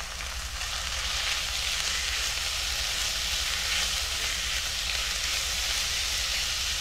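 Raw minced meat sizzling in hot oil with sliced onions and green chillies in a nonstick wok, broken up and stirred with a silicone spatula. A steady frying hiss that gets a little louder about a second in.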